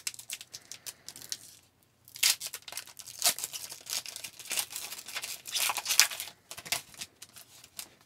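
A foil trading-card pack wrapper being torn open and crinkled. A few light rustles come first, then about two seconds in a dense crackling tear and crinkle runs for around four seconds before thinning out to a few soft rustles.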